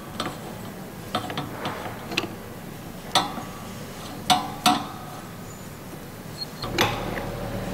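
Irregular sharp metallic clicks and ticks as a screw-type press tool squeezes a universal joint's bearing caps into the yoke, the loudest about three seconds and four and a half seconds in.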